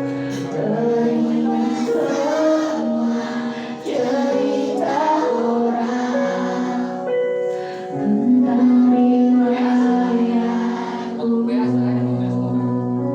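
Children singing a song together over electronic keyboard accompaniment with steady held chords.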